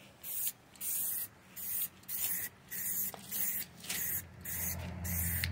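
Aerosol spray paint can spraying black paint onto a primed car wheel in short hissing bursts, about two a second, each under half a second long.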